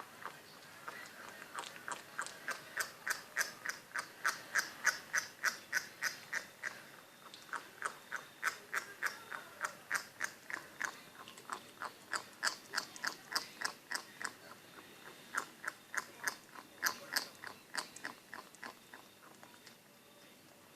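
A Maltese shih tzu puppy chewing a lamb chop bone in quick, rhythmic bites, about three a second, each with a weird duck-like squeak. The bites pause twice and stop near the end.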